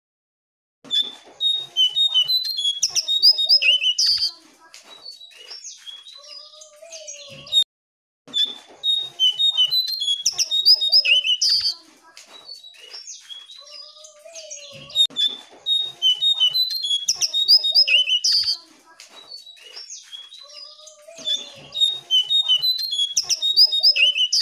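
Jongkangan (cingcoang coklat) songbird singing: four bouts of rapid, high chirping notes, each about three and a half seconds long and repeating every 6 to 7 seconds, with softer, lower whistled notes between bouts. The audio cuts to silence briefly near the start and again about eight seconds in.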